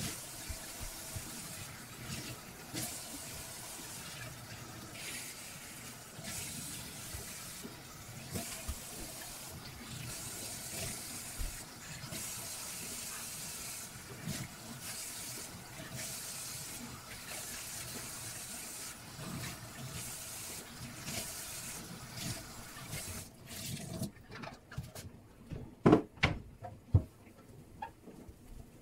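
Kitchen tap running into a stainless steel sink while the sink is scrubbed with a sponge. The water stops about three-quarters of the way through, followed by a few loud knocks on the steel sink.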